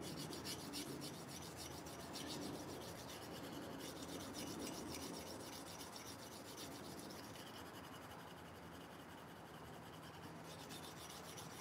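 Steel knife blade being stroked rapidly and continuously against a hand-held sharpening stone, a faint, steady scraping as the edge is refined after the coarse stones.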